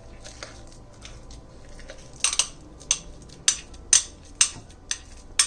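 Faint scraping, then from about two seconds in a run of about seven sharp kitchenware knocks, roughly two a second: thick, coarse-ground dal batter being knocked and scraped out of a blender jar into a bowl.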